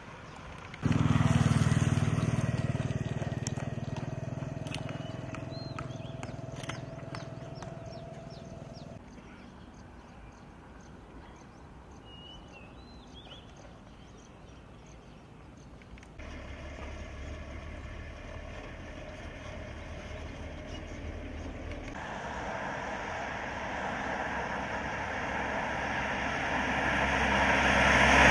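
Motor vehicles running past on a road in several short cut-together shots: engine and tyre noise that starts loud about a second in and fades, then builds again to a loud pass near the end.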